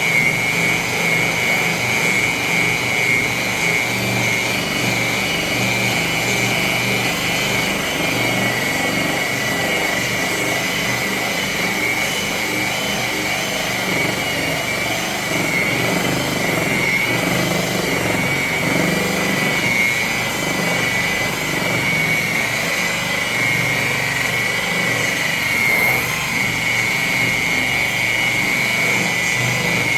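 Electric buffer polishing a lawn tractor's painted body panels, its motor running with a steady high whine.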